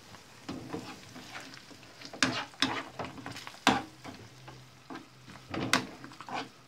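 A metal spoon stirring beaten egg into spinach, onion and garlic in a non-stick frying pan, scraping and knocking against the pan in about five sharp clinks, over a faint sizzle as the egg scrambles.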